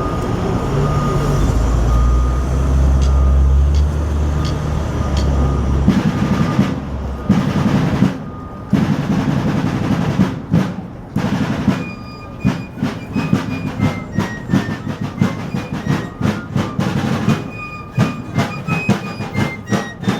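A heavy low rumble for the first several seconds, then a snare drum playing a fast, even marching cadence with short high notes stepping above it.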